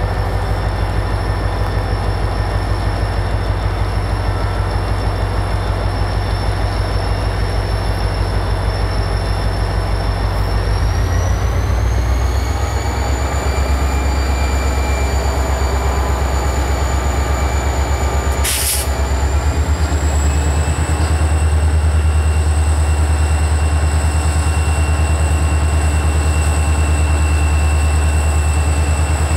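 EMD SD40-2 diesel locomotive with a 16-cylinder two-stroke engine throttling up as it starts a freight train moving: a steady low throb that grows louder about a third of the way in and steps up again past two-thirds, with a high whine rising in pitch as it first loads. A single brief sharp click a little past the middle.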